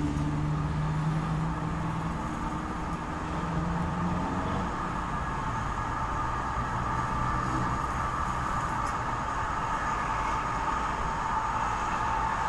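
Steady rumble of a passing vehicle, its low engine hum fading over the first several seconds while a steady noise carries on.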